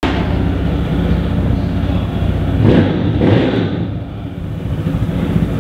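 Motorcycle engine running steadily, swelling louder twice near the middle.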